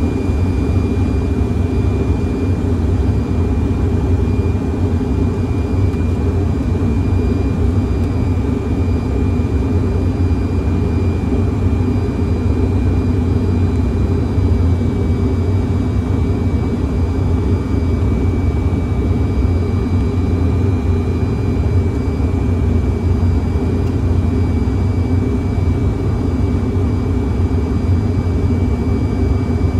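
Steady flight-deck noise of a Fokker 100 airliner on approach with the landing gear down: an even low rumble of airflow and engines, with a thin steady high whine above it.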